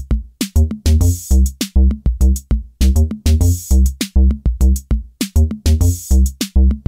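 Background music: an electronic track with a steady, heavy drum-machine beat.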